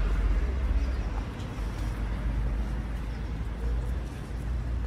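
Street traffic: a steady low rumble of road vehicles, louder at first and easing after about a second.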